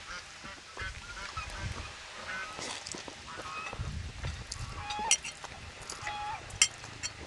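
Fowl calling repeatedly in short honking calls in the background, while a man slurps and chews instant noodles close to the microphone. Cutlery clicks sharply against the bowl twice near the end.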